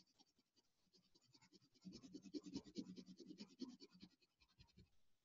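Faint scratching of a coloured pencil on paper: quick back-and-forth shading strokes, a little louder from about two to four seconds in.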